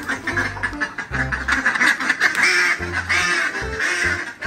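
Domestic ducks quacking, a run of short repeated quacks mostly in the second half, over background music.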